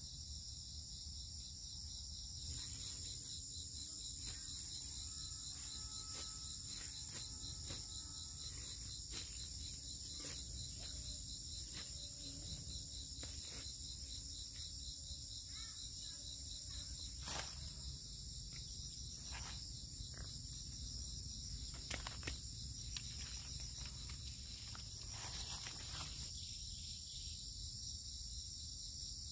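Steady, high-pitched chorus of insects trilling in woodland, with a few soft clicks and rustles.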